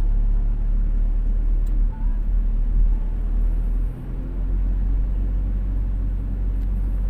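Steady low rumble of a car driving, its engine and tyres heard from inside the cabin, dipping briefly twice.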